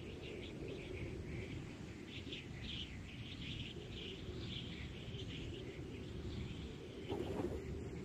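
Outdoor ambience of small birds chirping and twittering over a steady low background rumble.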